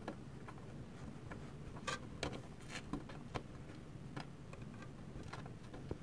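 Faint ticks and rustles of PCIe power extension cables and their plastic connectors being handled inside a Mac Pro's case, with a few sharper clicks between about two and three and a half seconds in.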